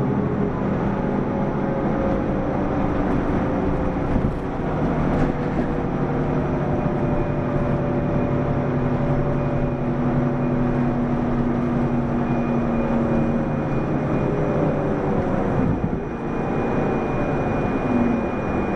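Mitsubishi Fuso PDG-AA273KAN city bus heard from inside while under way. The engine and driveline note slowly rises and falls in pitch. A brief dip in level comes about sixteen seconds in.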